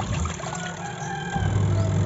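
Semi-automatic top-load washing machine's wash motor humming as it churns clothes in soapy water; the hum stops briefly and starts up again about two-thirds of the way through, as the wash pulsator changes direction.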